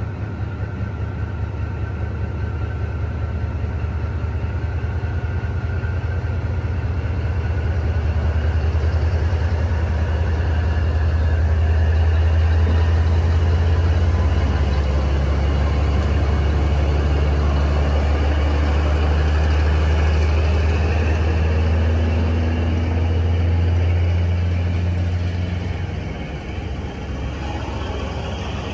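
D19E diesel-electric locomotive pulling a train slowly past, its engine running with a deep steady rumble that is loudest about halfway through as the cab goes by. The rumble eases off near the end as the wagons roll past.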